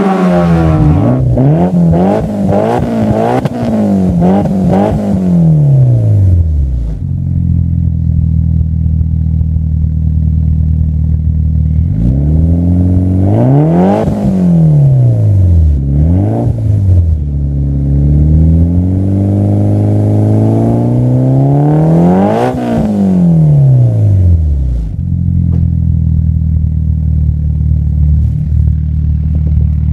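A Ford Fiesta ST's engine revved in a string of quick blips, then a Mitsubishi Lancer Evolution VI's turbocharged four-cylinder idling through a TurboXS aftermarket exhaust. The Evo is revved three times, the last a long climb of several seconds, falling back to a steady idle each time.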